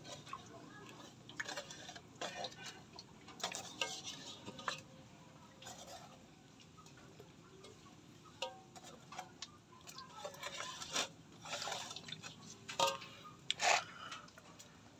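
Eels wriggling and splashing in shallow water in plastic basins, giving irregular wet slaps and knocks.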